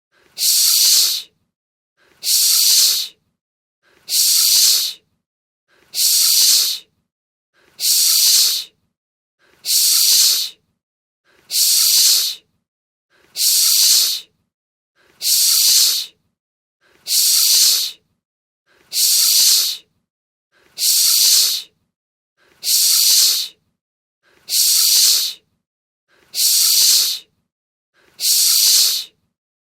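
A stock hiss sound effect, a burst of about a second with a short soft lead-in, looped over and over at an even pace of roughly one every two seconds with silence between.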